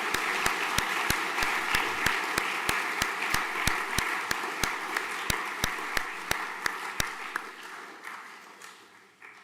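An audience applauding in a hall, a dense wash of clapping that thins out and dies away over the last couple of seconds.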